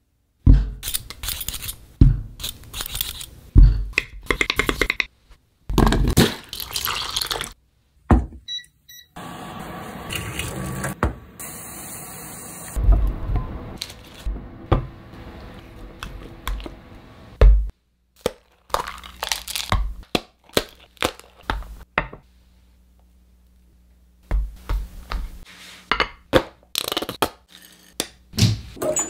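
Close-up food-preparation sounds: sharp knocks and thuds on a wooden board, a few short electronic beeps about eight seconds in followed by several seconds of steady hum, then aluminium foil crinkling and soft squishing of cooked potato being handled. Near the end comes a quick run of clicks from a pepper grinder.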